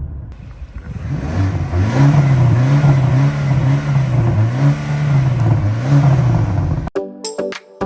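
BMW XM's twin-turbo V8 revved repeatedly through its exhaust, about six quick revs in a row, each rising and falling, roughly one a second. The engine sound cuts off abruptly about seven seconds in, and electronic music with plucked notes takes over.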